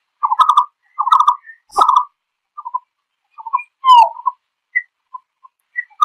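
Green-billed malkoha giving its flock call: short notes in quick groups of two to four, repeated about once a second. One note slides downward about four seconds in.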